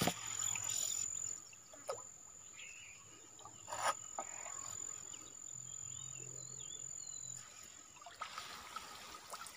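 Outdoor pond-side ambience: a steady, high-pitched, cricket-like insect drone, with a few faint bird chirps about halfway through and a few soft clicks.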